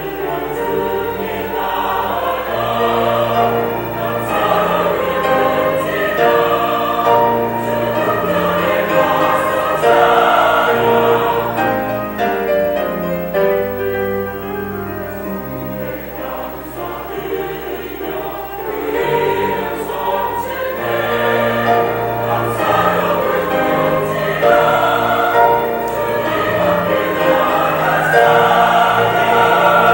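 Church choir singing an anthem in several-part harmony. It grows softer for a few seconds about halfway through, then swells again.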